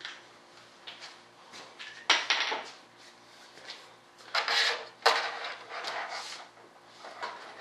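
Hands handling parts and tools while fitting the landing gear of a large RC jet model: scattered clunks and rattles, with loud knocks about two seconds in and about five seconds in.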